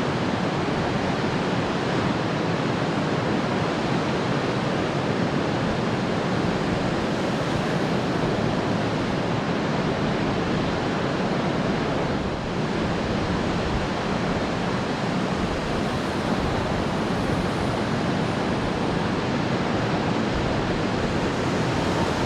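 Pacific Ocean surf washing in as a steady, even noise, with a breeze blowing across the microphone.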